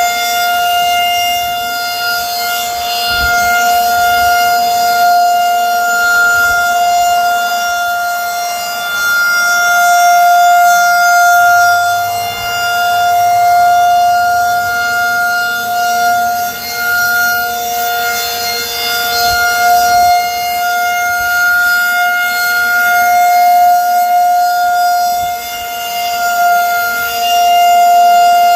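Federal Signal 2001-130 electromechanical tornado siren sounding a steady alert tone: one held pitch with overtones, swelling and fading in loudness about every five seconds as the rotating siren head sweeps past.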